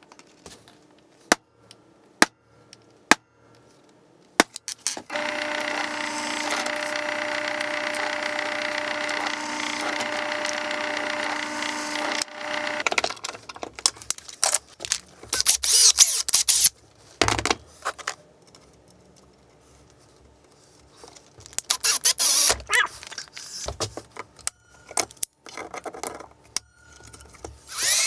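Workshop tool sounds: a few sharp clicks, then about eight seconds of a steady motor whine that stops suddenly, then irregular scraping and handling noises. Near the end a cordless drill starts boring into an aluminium plate held in a vise.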